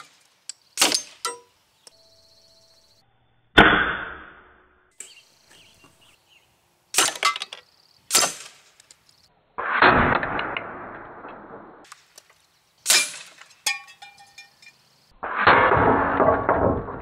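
.177 air rifle pellets striking a target stand: a string of about nine sharp hits several seconds apart as plastic bottle caps are shot off a rail and a steel spinner target is struck. Several hits are followed by a second or two of metallic ringing and rattle.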